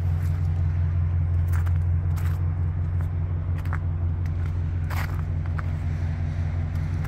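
Steady low rumble of a vehicle engine idling, with a few faint clicks over it.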